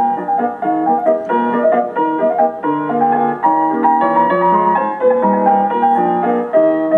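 Background music: piano playing a quick run of notes over changing chords.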